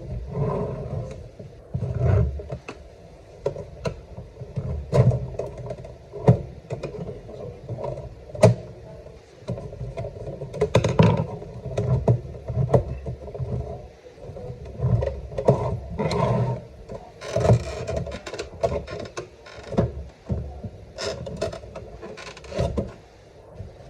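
Handling noise close to the microphone: irregular knocks, clicks and rubbing as the radio and its parts are moved about and examined.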